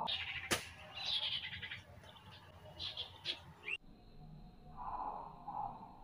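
High, quick chirps and trills of small songbirds, as used to lure birds for trapping, with a sharp click about half a second in; near the end the calls turn softer and lower-pitched.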